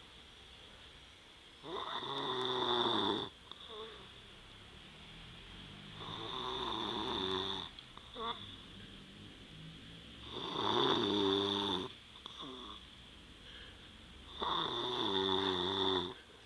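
A man snoring in deep sleep. Four loud, drawn-out snores come about every four seconds, each lasting about a second and a half, with softer breath sounds between them.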